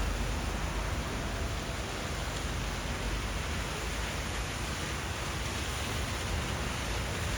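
Steady rain, a continuous even hiss with a deep rumble underneath and no separate drops or knocks standing out.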